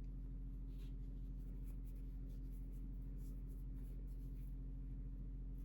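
Faint, scratchy rustling at irregular moments as hair and lace are handled during a lace front wig install, over a steady electrical hum.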